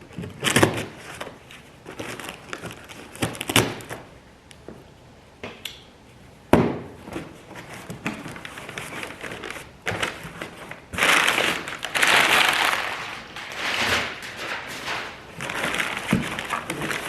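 Cardboard parts box being opened and unpacked: a few sharp knocks and thuds of handling, then several seconds of packing material rustling and crinkling.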